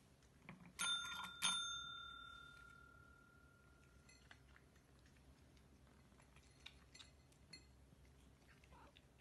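Tabletop call bell (a service-desk style pet bell) struck twice about two-thirds of a second apart, its clear high ring fading out over about three seconds.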